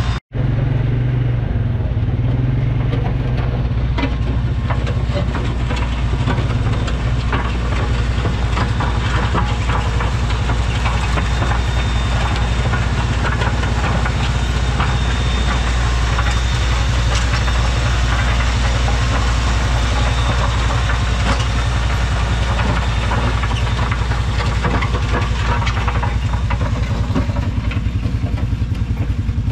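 Vehicle engines running steadily with a low drone: a compact tractor's engine pulling a back blade that grades a dirt road, and the utility vehicle following close behind it.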